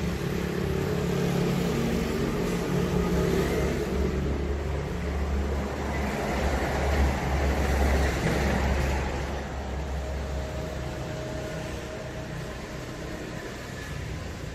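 Engine of a passing road vehicle: a low rumble that builds over the first few seconds, is loudest around the middle, then slowly fades away.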